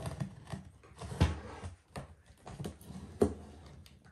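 Hands opening a laptop box: irregular knocks and rustling scrapes of the packaging, with two sharper knocks about a second and three seconds in.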